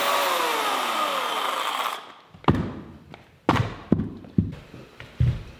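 Corded Craftsman electric chainsaw winding down after finishing a cut through a pine beam, its pitch falling for about two seconds until it stops. Then about five separate thuds and knocks on the concrete floor.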